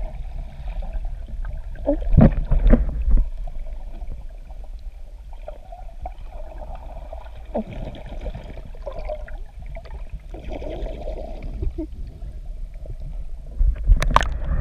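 Shallow sea water splashing and sloshing close to the microphone during snorkeling, over a steady low rumble, with louder splashes about two seconds in and again near the end.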